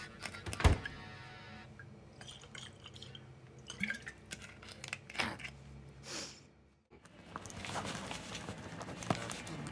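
Kitchen handling sounds: one heavy thump, then scattered small clicks and knocks, with a short hiss near the middle. After a sudden break, a pen scratching steadily across paper.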